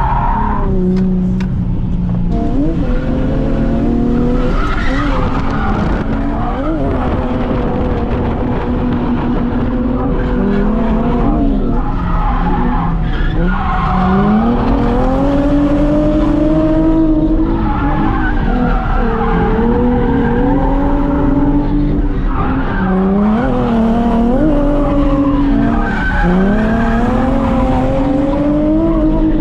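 Drift car engines revving hard, the pitch climbing and dropping again every few seconds as the cars are thrown through the corners, with tyres squealing and skidding underneath.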